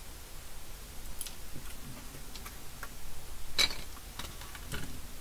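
Scattered small clicks and taps of tools and parts being handled while assembling a circuit board, irregular rather than rhythmic, the sharpest about three and a half seconds in, over a low steady hum.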